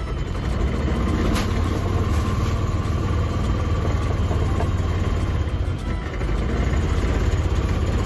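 Vehicle engine running steadily with a deep rumble, heard from inside the cab while driving.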